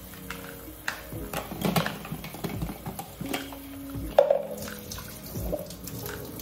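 Kitchen faucet running into a stainless steel sink while a plastic smoothie cup and its screw-on lid are rinsed under the stream, with knocks and clatter as they are handled; the sharpest knock comes about four seconds in. Background music with held notes plays underneath.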